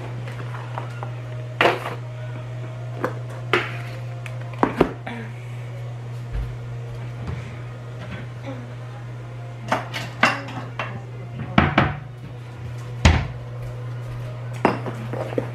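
Plates and bowls being handled and set down on a kitchen counter, with scattered clinks and knocks and some cutlery clatter, over a steady low hum.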